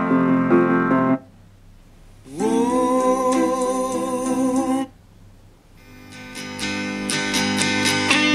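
Dodocool DA150 stereo Bluetooth speaker playing music: a piano-like passage cuts off about a second in. After a short gap, a held tone that slides up at its start plays for about two and a half seconds and stops, and then plucked guitar fades in.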